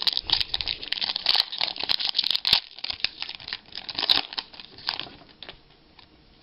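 Foil trading-card pack wrappers crinkling and tearing as packs are ripped open and handled, dense crackling for about five seconds that dies away near the end.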